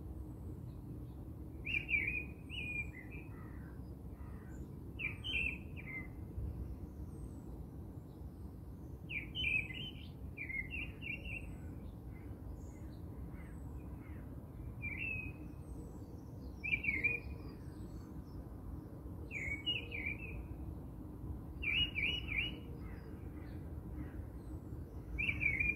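Small birds chirping in short, quick phrases that recur every two or three seconds, over a steady low background rumble.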